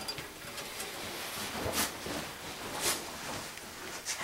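Faint rustling as the grill's wire and the Pyrex-and-pot assembly are handled, with two brief soft swishes about two and three seconds in.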